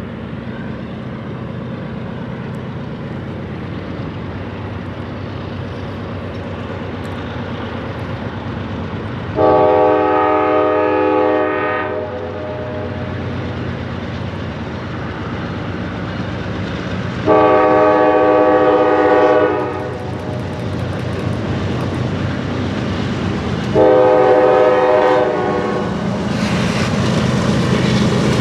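Diesel freight locomotive working under a steady engine rumble, sounding its multi-chime air horn: three blasts of about two seconds each, with a fourth starting near the end, a long-long-shorter-long pattern like a grade-crossing signal. The train's noise grows louder toward the end as it approaches.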